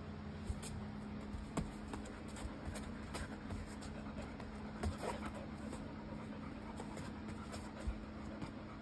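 A dog moving about at a wire pet cage: a few faint, scattered taps and light scratching over a steady low hum.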